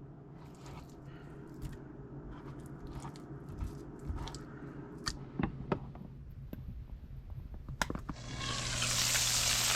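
Scattered small clicks and knocks over a low steady hum. About eight seconds in, a loud, steady sizzle of meat frying in a pan begins.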